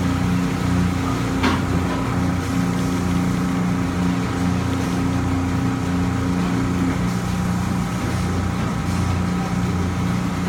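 Steady low hum of a motor running, with one upper tone in it dropping out about seven seconds in.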